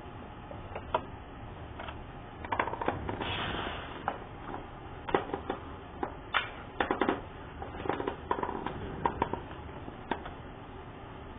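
Hard plastic vacuum-cleaner parts being handled: scattered clicks and knocks, with a short rustling stretch about three seconds in.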